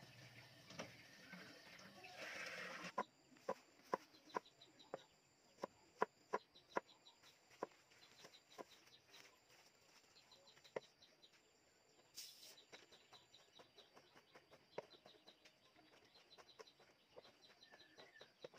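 Knife blade striking a round wooden chopping board in sharp, irregular knocks, about one or two a second, growing fainter after about eleven seconds. Before that, a brief noisy scraping gives way abruptly to the knocking about three seconds in. Faint chicken clucking and high chirping sounds run in the background.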